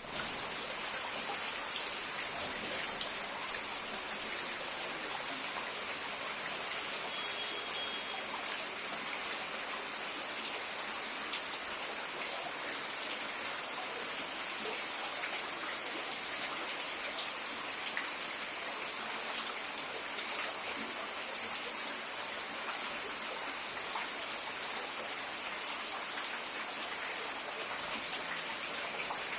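Heavy rain falling on plants: a steady, even hiss dotted with countless sharp little drop hits.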